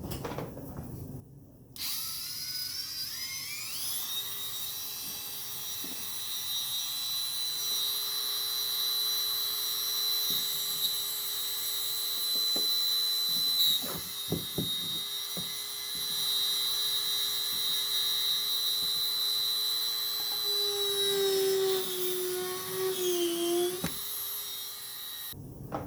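Dremel rotary tool with an abrasive bit spinning up to a steady high-pitched whine while grinding around a rusted threaded insert in a kayak. Its pitch sags and wavers for a few seconds near the end, then it switches off.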